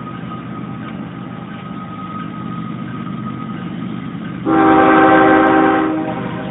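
CSX freight locomotive's air horn gives one loud, long blast about four and a half seconds in, over the steady rumble of the train rolling by.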